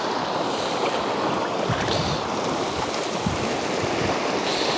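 Sea surf washing onto the shore in a steady rush, with a few low wind buffets on the microphone.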